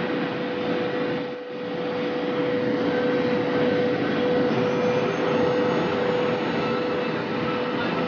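High-speed electric train running at about 485 km/h: a steady rushing noise with a steady mid-pitched whine, dipping briefly about a second and a half in.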